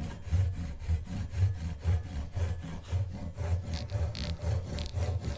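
Fine-toothed side of a Gyokucho Japanese saw rasping through a hardwood pen blank in short back-and-forth strokes, about two a second, scoring a shallow starting kerf along a marked line.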